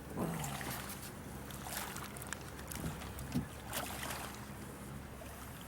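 Steady low hum on a river fishing boat, with scattered clicks and short splashy noises over it.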